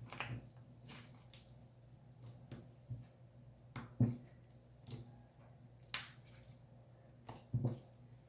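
Hands working yellow cloud slime: short sticky pops and clicks at uneven spacing, about one a second, over a low steady hum.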